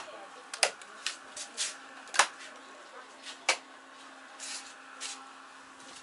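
Irregular sharp clicks and taps, about a dozen, from footsteps and handling as someone moves about inside a wooden gazebo and steps out. A faint steady hum lies underneath.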